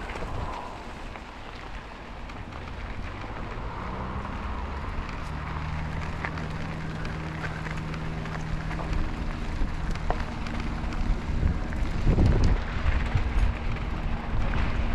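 Wind buffeting the microphone, with a steady low engine hum that comes in about four seconds in.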